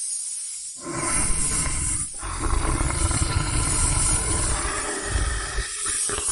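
Lion roaring, starting about a second in, with a brief break after another second and then a long, rough rumble.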